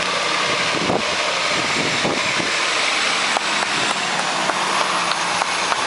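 Freightliner box truck's diesel engine running steadily at low speed as the truck rolls past close by.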